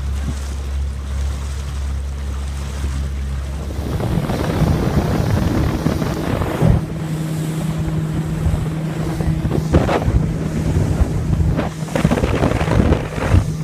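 A small aluminium boat under way: its motor runs with a steady low note, and about four seconds in the note shifts higher as the rush of water and wind grows louder. A few thumps come through, with wind buffeting the microphone.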